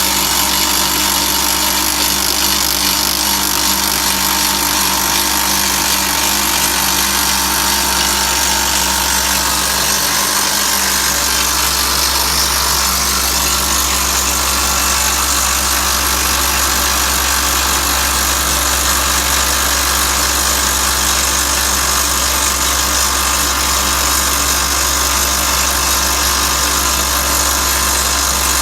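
Atlas Copco FlexiROC surface drill rig percussion-drilling blast holes in rock: the top hammer and the rig's engine run steadily and loudly without a break.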